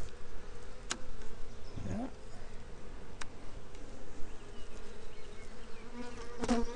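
Honeybees buzzing steadily around comb lifted from an open hive, swelling louder with a short pitch glide about two seconds in and again near the end. A few sharp clicks sound over the buzz.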